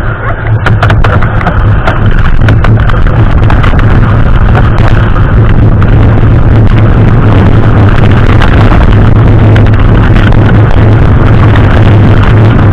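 Loud rumble of a mountain bike descending at speed, with heavy wind buffeting on the camera microphone and a steady low drone. Sharp clicks and rattles over the first two seconds, then a constant roar.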